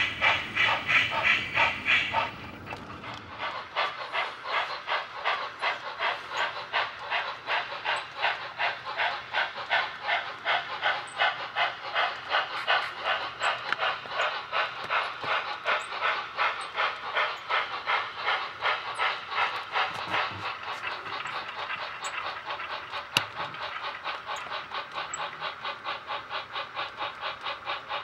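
Model steam locomotive sound decoder playing a steady, rapid chuffing exhaust beat through the engine's small onboard speaker as the locomotive runs. The beat is louder for the first two seconds, then softer, with a single sharp click near the end.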